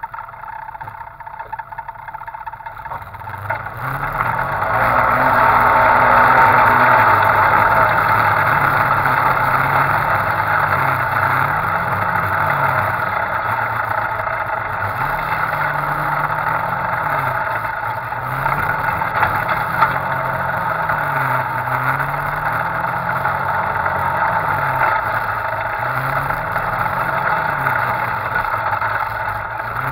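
Off-road side-by-side UTV engine running while driving. Its pitch rises and falls again and again as the throttle is worked, over a steady rushing noise, and it gets louder about four seconds in.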